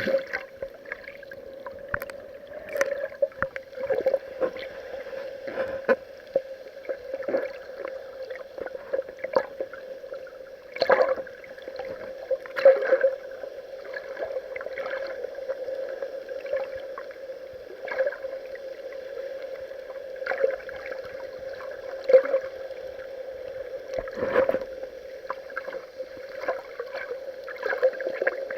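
Water sloshing and splashing against an action camera's waterproof housing, heard muffled, with a steady drone and many irregular knocks.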